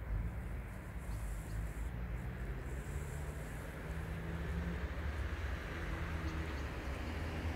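A motor vehicle's engine running steadily, a low even hum over a rumbling background.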